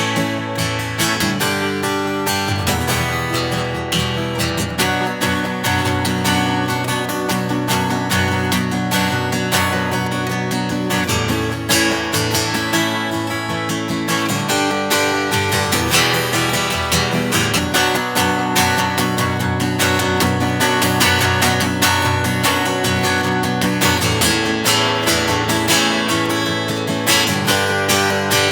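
Taylor GS5 acoustic guitar, with a cedar top and mahogany back and sides, strummed with the fingers and no pick, in a continuous run of chords.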